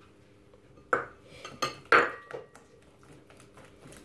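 A whisk knocking and clinking against a glass mixing bowl while beating eggs and sugar: a handful of sharp knocks with a short glassy ring, bunched between about one and two and a half seconds in, over a faint steady hum.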